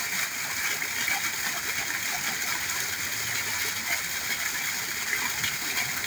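Steady splashing and running water from an inflow pouring into a koi pond.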